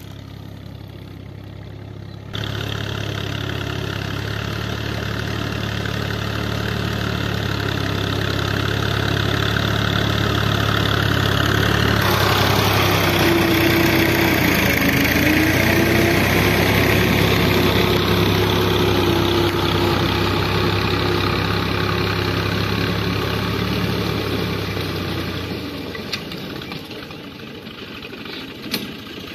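Ghazi diesel tractor's engine running under load as it pulls a mounted disc plough through soil. It grows louder as the tractor comes close, with a thin whine while it is nearest, then fades as it moves away near the end.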